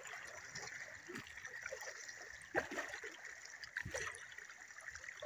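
People wading through shallow water: a few soft splashes from steps, roughly a second and more apart, over a faint steady trickle of water.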